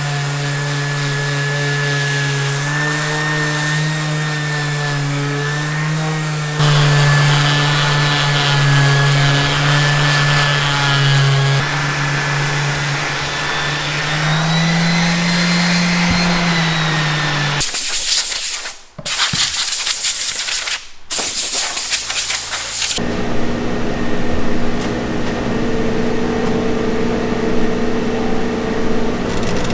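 Electric random orbital sanders running on wooden cutting boards: a steady motor hum with a faint rubbing of the pad on the wood. Part way through, a loud rushing noise takes over and cuts out twice. Near the end it gives way to a different steady machine hum as a laser engraver works.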